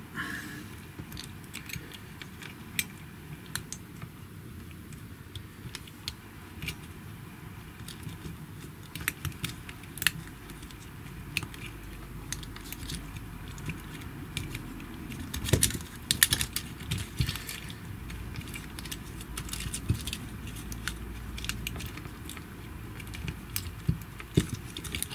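Small irregular clicks, taps and rattles of plastic and metal parts of a GHD Platinum hair straightener arm being handled and pushed together by fingers, with a cluster of louder clicks about two thirds of the way through.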